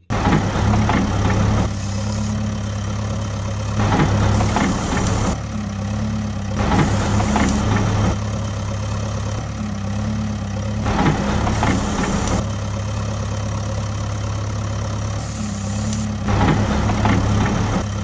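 Excavator engine sound effect: a heavy engine running steadily with a low hum, getting louder in short surges about every three seconds as the digging arm works.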